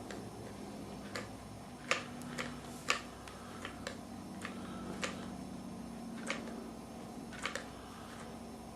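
Light clicks and taps at irregular intervals, a few louder ones about two and three seconds in, over a faint steady low hum.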